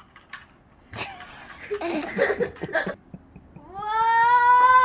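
Sharp plastic clicks of a Rubik's cube being turned, then a child's voice, and from near three-quarters of the way through a long, high, drawn-out vocal cry that rises and then holds steady while the cube clicks go on under it.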